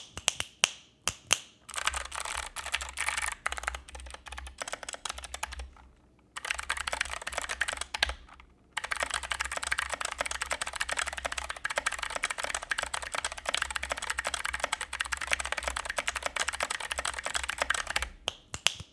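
Typing on a GK68X mechanical keyboard in an acrylic case, fitted with clicky Kailh Box White switches and DSA keycaps. A few single key presses lead into fast continuous typing, broken by two short pauses, and a few single presses come near the end.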